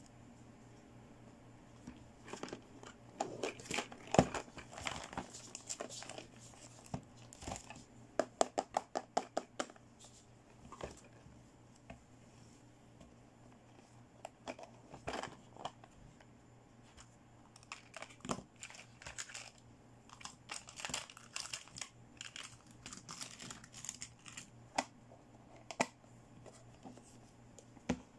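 Plastic toy packaging being handled, crinkling and tearing in irregular bursts, with a quick run of sharp clicks about eight seconds in.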